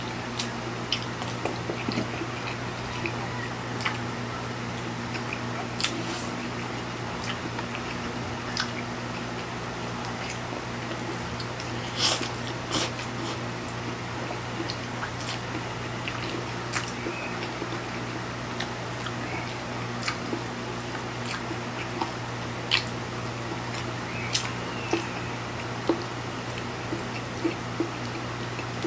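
Two people eating spicy instant noodles with forks: chewing and mouth sounds, with short sharp clicks scattered every second or two. A steady low hum runs underneath.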